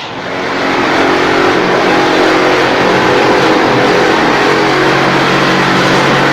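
Automatic wall-plastering machine starting up and running: the sound rises over about the first second, then holds steady and loud, a motor hum under a broad rushing noise.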